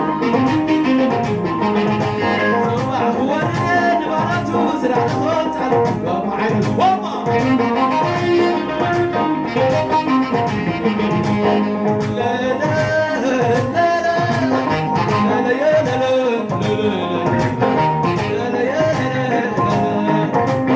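Live Eritrean guayla band music played through a PA: a man singing over keyboard, saxophone and a steady driving beat.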